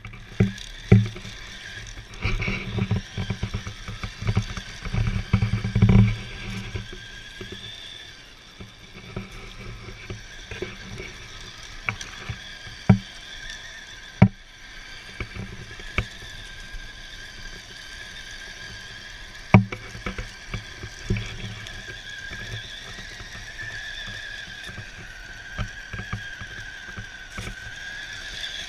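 Radio-control Tamiya CC01 truck on rubber tracks driving over a dirt trail, its electric motor and gears whining steadily, the pitch drifting a little with speed. A run of thumps and knocks in the first six seconds, then a few sharp single knocks.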